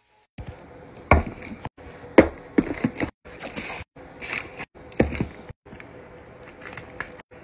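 Hard plastic lunch box and food packets handled and set into an insulated lunch bag: a string of sharp plastic clacks and knocks with rustling between, broken off abruptly every half second or so.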